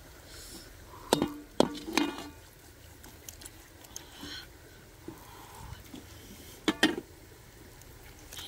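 Knife chopping through a whole braised chicken: sharp knocks of the blade striking the surface beneath, three in quick succession about a second in, then two more close together near the end.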